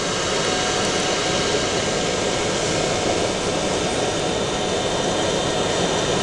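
KCD-10 CO2 laser engraving machine running while it marks ceramic: a steady rushing machine noise with a faint constant whine.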